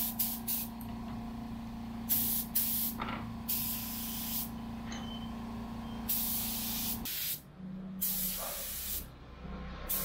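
Gravity-feed spray gun hissing as it sprays a mist coat of epoxy primer at 30 PSI, in repeated passes about a second long each. Under it a steady low machine hum cuts off suddenly about seven seconds in.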